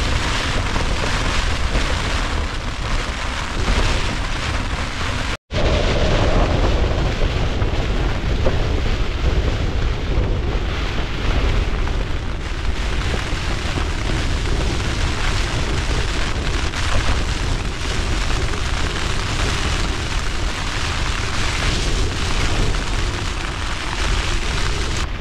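Storm wind buffeting a Nortent Vern 2 tent, heard from inside: a heavy rumbling roar on the fabric with driving rain on the flysheet, the walls bowing in under the gusts. The sound cuts out for an instant about five seconds in.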